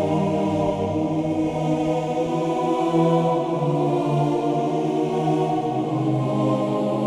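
Sampled choir preset on the Pure Synth Platinum software rompler, played as slow held chords.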